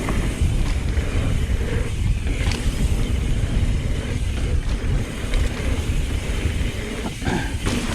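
Wind buffeting the microphone and tyres rumbling over a dirt trail as a mountain bike rides fast downhill, with a few short clatters from the bike over bumps.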